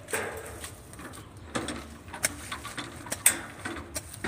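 Small green-handled garden hand tool working the soil of a flower bed: scraping with a few sharp knocks, the loudest a little past three seconds in.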